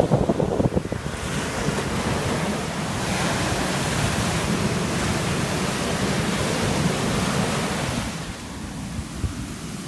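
Ocean surf: a wave breaks and its wash rushes up the beach, swelling about a second in and easing off near the end. Wind buffets the microphone in the first second.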